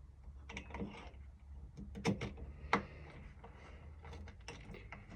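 Small sharp clicks and taps of deadbolt lock cylinder parts and a rekeying tool being handled as the cylinder cap is fitted back on, the loudest clicks about two seconds in and just under three seconds in.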